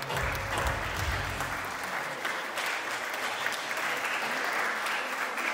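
Audience applauding at the end of a dance performance, with the last of the music's bass dying away in the first couple of seconds.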